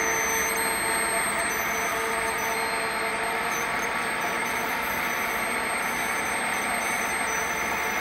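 Huron MU 55 milling machine running steadily: a machine hum with a steady whine in it.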